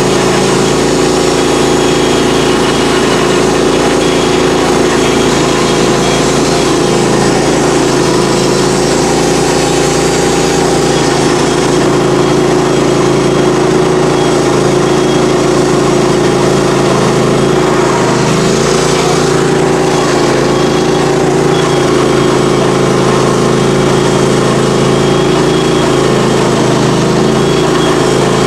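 Norwood HD38 portable band sawmill running steadily under engine power while its band blade cuts an ash log, with a hiss from the cut over the engine's drone. The engine note sags briefly about two-thirds of the way through.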